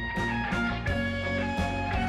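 Instrumental background music led by guitar, a melody of held notes changing every fraction of a second.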